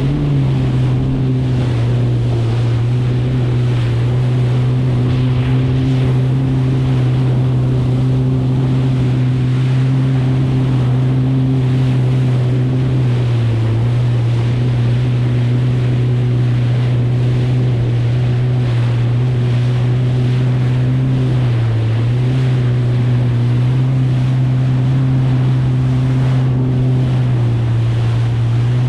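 2023 Kawasaki STX 160X jet ski's four-cylinder four-stroke engine running steadily at speed, with water rushing and splashing under the hull in chop and wind on the microphone. The engine note dips briefly twice, about halfway through and again near three quarters of the way.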